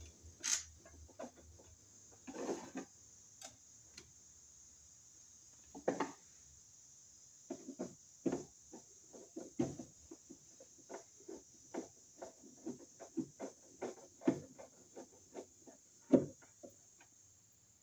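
Small irregular clicks and ticks of a hand screwdriver turning a cover screw into a metal electrical box, sparse at first and then several a second through the second half, with a few louder knocks.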